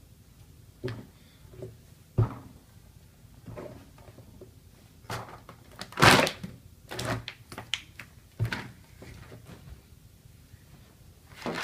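Knocks and thumps of ten paper cups being loaded with a 120-pound person's weight. The loudest, longest crash comes about six seconds in, as the cups give way under the load.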